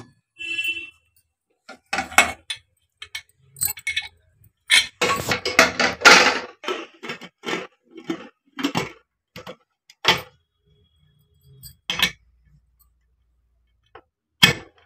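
Small stainless-steel pressure cooker being closed: the lid clinks and knocks against the pot's rim in a run of short metal clanks. Near the end the whistle weight is set on the lid's vent with one sharp click.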